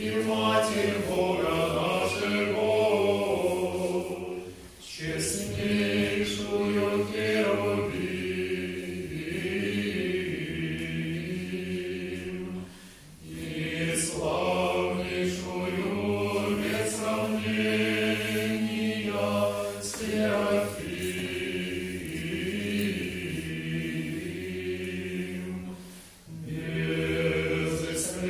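Small male choir singing Russian Orthodox chant a cappella, in long held phrases with brief pauses for breath between them.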